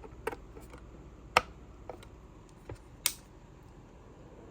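A handful of sharp plastic clicks and snaps as an M.2 NVMe SSD is fitted into a docking station's slot, the loudest about a second and a half in and another about three seconds in.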